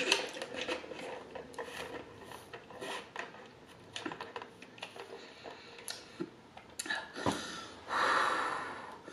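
Sipping a drink through a straw, with many small wet mouth and swallowing clicks, then a long breath out near the end.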